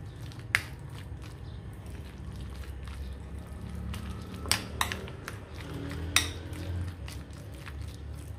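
Metal spoon stirring shredded chicken and mayonnaise in a glass bowl, with a few sharp clinks of the spoon against the glass, two of them close together just past the middle.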